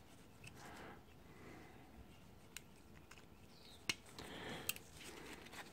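Faint small clicks and scraping as a flat screwdriver prises the spot-welded metal connector plate off the end of a lithium-ion cell in a Makita battery pack, with one sharper click about four seconds in.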